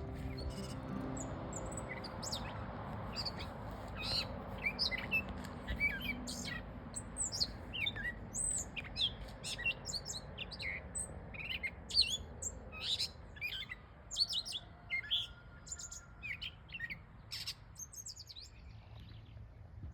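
Small birds chirping: many short, high chirps in quick succession, over a low hiss that fades away in the first half.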